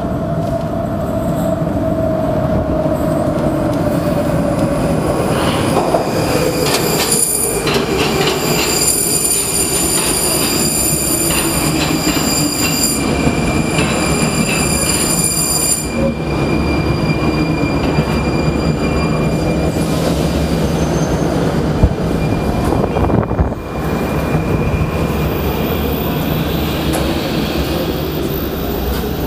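Metro train running and slowing: its motor whine falls steadily in pitch over about fifteen seconds, with high wheel squeal through the middle of that stretch. Near the end a whine rises in pitch as a train picks up speed.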